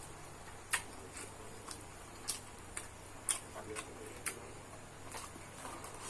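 Eating sounds from someone eating fried rice: a series of soft, short clicks about twice a second, a few of them louder.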